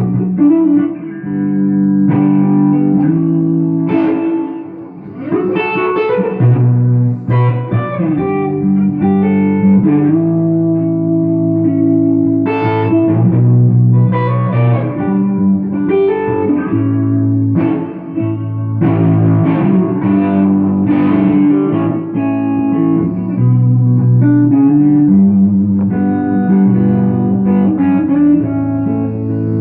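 Electric guitar with DiMarzio pickups, a Takamine GX-100, played through a small tube amp: picked chords and sustained single notes that change every second or two.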